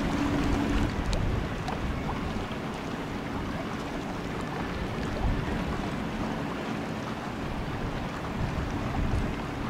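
Wind buffeting the microphone over a low rumble of distant ship engines on the river. A steady engine hum fades out about a second in.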